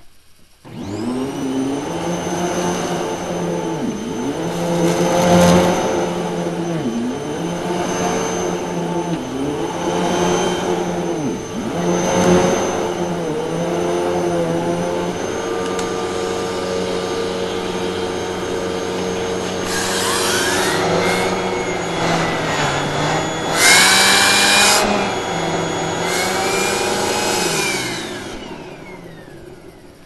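Hoover WindTunnel T-Series Pet Rewind upright vacuum cleaner switched on about a second in and running over carpet, its motor pitch dipping every couple of seconds as it is pushed back and forth. Later, whistling tones rise and fall and there is a loud rush of air. It then winds down near the end as it is switched off.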